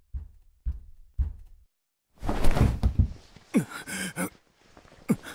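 Drama sound effects: four soft footsteps about half a second apart, then a heavier thud with a rustle about two seconds in, followed by a man's short breathy vocal sounds with falling pitch.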